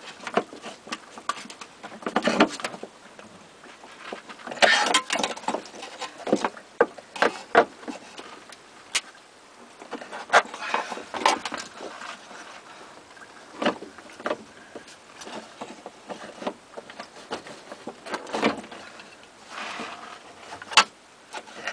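Pliers working cut sheet metal of a car's floor pan: irregular clicks, scrapes and metallic knocks. Near the end the plastic fuel pump and sender assembly rubs and knocks as it is worked up through the opening.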